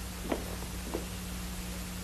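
Steady hum and hiss of an old 1950s film soundtrack, with two soft knocks in the first second.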